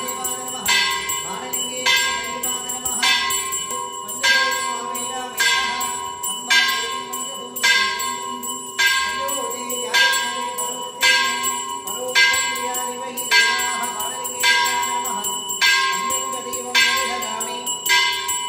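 Temple bells ringing in a steady beat, about one strike a second, each strike leaving a ringing tone that carries into the next.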